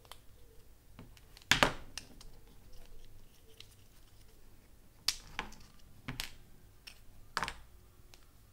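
Plastic parts of a Beyerdynamic DT252 headphone's headband yoke clicking and snapping as they are worked apart by hand. There are four sharp clicks, the loudest about a second and a half in, with lighter ticks and handling noise between them.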